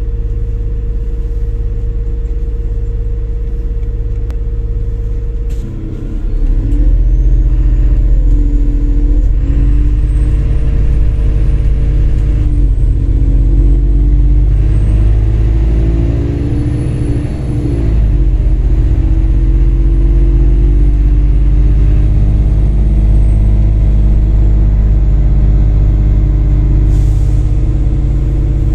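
MAZ-203 city bus heard from inside the cabin, its engine idling at a stop, then pulling away about six seconds in and accelerating. A faint high whine rises as it gathers speed and slowly falls again, and there is a brief dip in the engine sound about eighteen seconds in.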